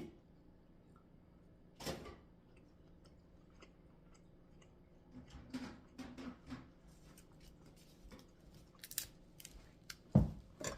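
Scattered crunches, clicks and small knocks of seafood being handled and eaten at a table, with one loud knock near the end.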